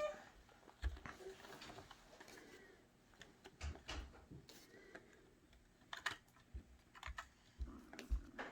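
Scattered light plastic clicks and knocks as a Nerf Rival Roundhouse blaster is handled and loaded with foam ball rounds, coming irregularly a few times a second at most.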